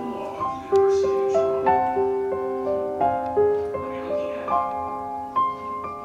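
Background music: a slow keyboard melody of held notes and chords, changing about every half second.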